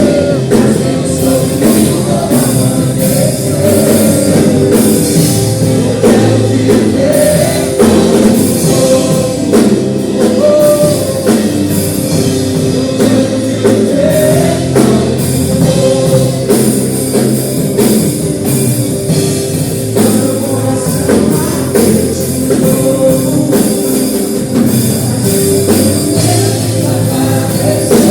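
Live worship music: singing over a band with drum kit and guitar, playing steadily.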